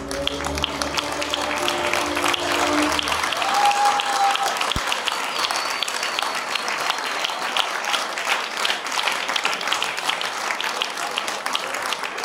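Audience clapping and applauding. The band's last held notes die away during the first three seconds.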